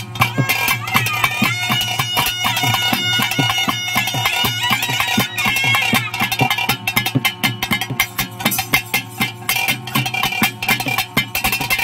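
Bhuta kola ritual music: a shrill reed pipe plays a wavering, sustained melody over fast, dense drumming. The drum strokes grow thicker about halfway through.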